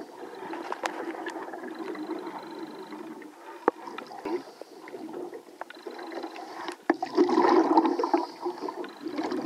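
Muffled underwater bubbling and gurgling of a scuba diver's exhaled breath from the regulator, with scattered sharp clicks; the bubbling swells louder about seven seconds in.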